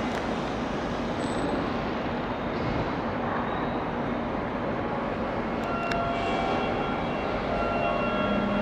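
Seibu Ikebukuro Line electric commuter train running at the platform: a steady rumble, joined about six seconds in by a few thin, steady, high whining tones.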